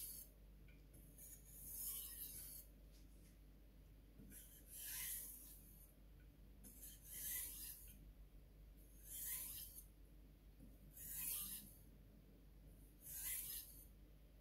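Takamura Chromax knife blade scraping along a Suehiro waterstone during sharpening: six slow, gritty strokes, roughly one every two seconds, with quiet pauses between them.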